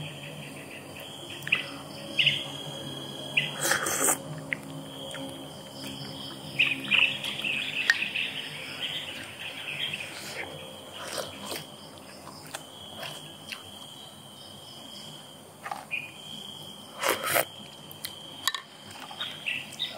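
Wooden spoon knocking and scraping against a ceramic soup bowl, with a few sharper knocks, the loudest about four seconds in and near the end. Behind it an insect buzzes on one steady high note, breaking off and starting again several times.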